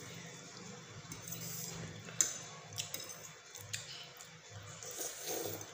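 Noodle-eating sounds: forks clicking against ceramic plates a few times, with faint wet chewing and slurping.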